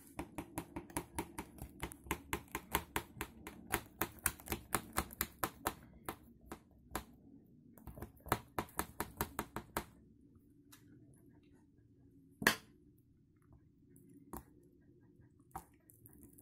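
A kitchen knife worked up and down between a chocolate cake and its silicone cake ring on a glass plate, clicking with each stroke about three times a second. The clicks stop about ten seconds in; after that come a few scattered clicks, one of them sharper and louder.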